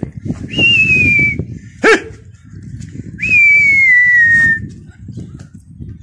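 Two long, loud human whistles, each sliding slightly down in pitch, whistled at a flock of pigeons in flight. A single short, sharp yelp comes between them.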